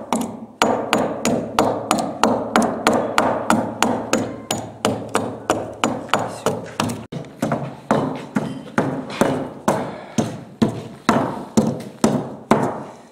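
Japanese adze (chōna) swung in steady strokes, about two to three a second, its blade biting into the wooden bottom planks of a river boat as the surface is hewn.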